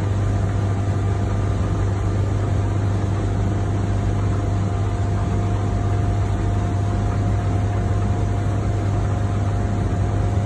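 Motorboat engine running steadily underway, a constant low drone.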